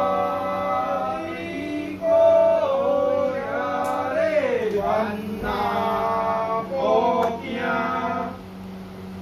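Male voices chanting a ritual chant in long held notes that slide up and down in pitch, over a steady low hum.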